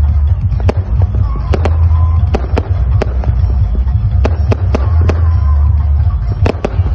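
Aerial fireworks bursting in a dozen or so sharp bangs at irregular intervals, over the heavy, continuous bass of a large outdoor sound system playing music.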